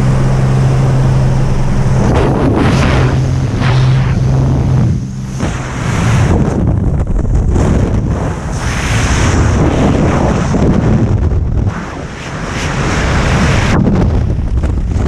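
A light aircraft's engine drones at the open jump door. After a few seconds it gives way to loud, buffeting freefall wind over the helmet camera's microphone, surging and easing.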